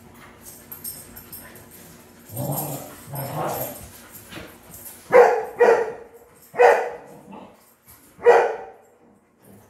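Dog barking: two lower, longer woofs a couple of seconds in, then four loud, sharp barks spaced about half a second to a second and a half apart.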